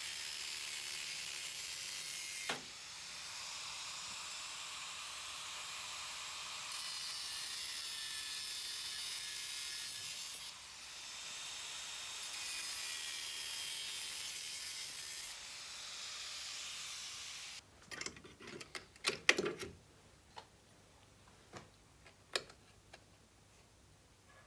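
A power cutting tool slicing through the thin, rusty sheet steel of a Land Rover Series bulkhead, a steady harsh noise in several stretches that stops abruptly near the end. A few sharp clicks and metal knocks follow as the cut piece is handled.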